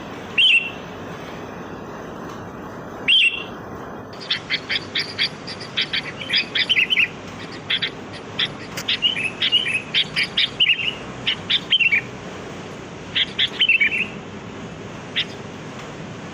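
Sooty-headed bulbul (kutilang) calling: two short calls in the first few seconds, then a lively run of quick chirps and bubbling warbled phrases for about ten seconds, with a couple of single notes near the end.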